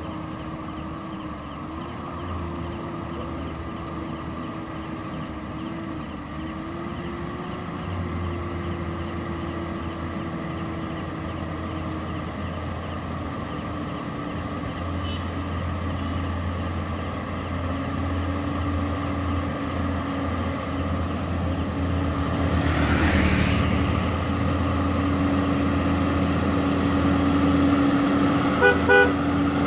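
Heavy truck traffic approaching: a low, steady engine drone that grows gradually louder as the convoy nears. About 23 s in a vehicle passes close with a brief whoosh, and near the end comes a quick run of short beeps.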